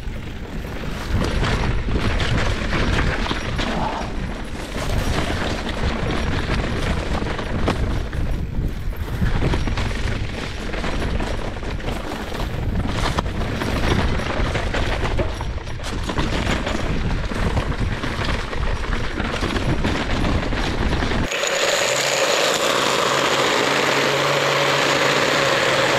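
Mountain bike rolling over a dirt trail, with heavy wind rumble and rattling on the helmet-mounted microphone. About 21 seconds in, it cuts abruptly to a battery-powered pole hedge trimmer running with a steady whine while it trims brush.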